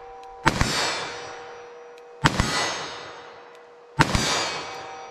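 Three shots from a .357 Magnum revolver, about two seconds apart. Each is followed a split second later by the clang of the bullet striking a steel silhouette target, and the steel rings on between shots.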